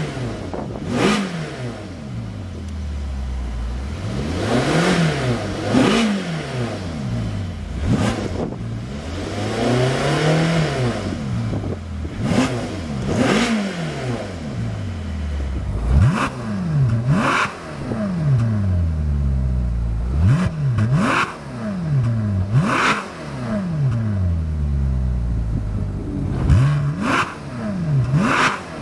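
2010 Ferrari California's 4.3-litre V8 being revved repeatedly while parked. The engine rises and falls back toward idle over and over, mixing a few long, slow sweeps with quick sharp blips, freely revving.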